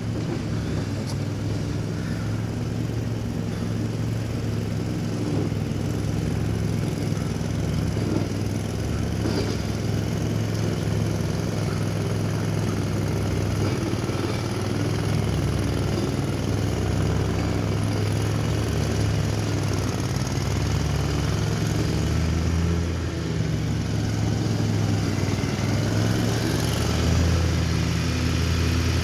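Lawn mower engine running steadily under load, its pitch wavering slightly and dipping briefly about two-thirds of the way through, a little louder near the end.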